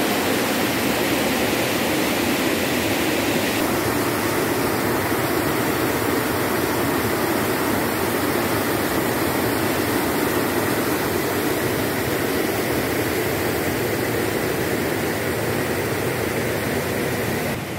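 Steady rushing of river water pouring over a concrete weir.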